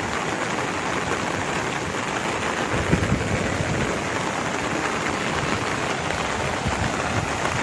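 Steady rushing noise of a fast brown flood torrent surging past an eroded road edge, with heavy rain, and a few low thumps about three seconds in.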